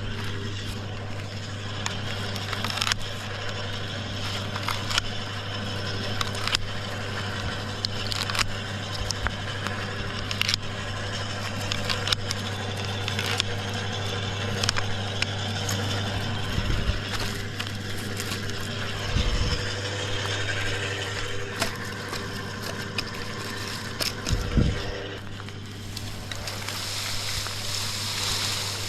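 Wood chipper running steadily with a low hum while branches are fed through, crackling, snapping and scraping as the wood is shredded into chips.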